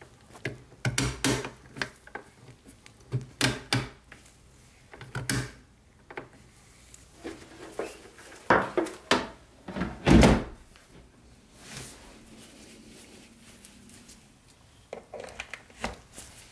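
Handling noise from unpacking and setting up a paper shredder: a string of irregular thunks and knocks of hard plastic parts, with rustling of the packaging. The loudest knock comes about ten seconds in.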